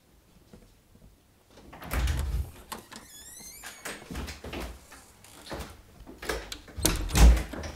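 An interior panelled door opening with a brief squeak, then footsteps and knocks. The door is shut with a loud thump near the end.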